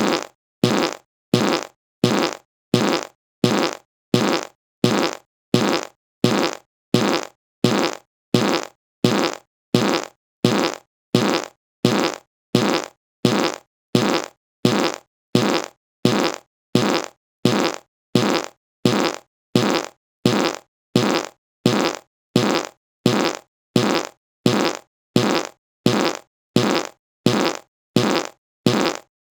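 A short, buzzy fart sound effect repeated over and over at an even pace, about three every two seconds, each one fading out quickly.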